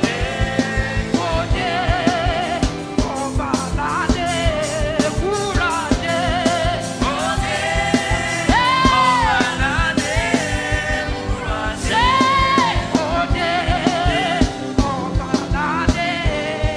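Gospel worship music: a singer with a wavering vibrato voice over a band with a steady drum beat, holding long notes about halfway through and again near twelve seconds in.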